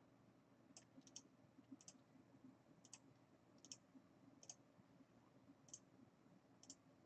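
About ten faint, irregularly spaced clicks of a computer mouse and keyboard.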